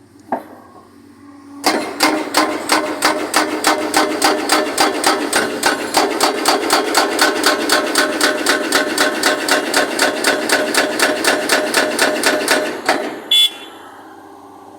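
Hsuntay ST350C hydraulic breaker on an excavator hammering in a rapid, even rhythm of about five blows a second for roughly eleven seconds, then stopping, with a short sharp sound just after. A steady engine drone runs under it.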